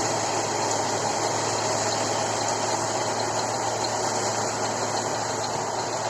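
John Deere rice combine harvester running steadily, its engine and machinery giving an even, unchanging drone.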